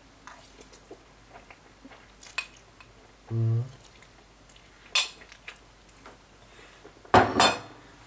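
Cutlery and dishes: light taps and scrapes of a fork, a sharp clink about five seconds in, and two loud clatters near the end as a plate is set down on the table. A brief low hum about three seconds in.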